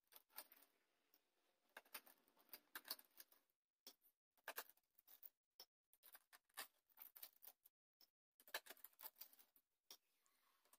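Faint, scattered scrapes and clicks of a spoon scooping wet sand out of a bottle and tipping it into a cup.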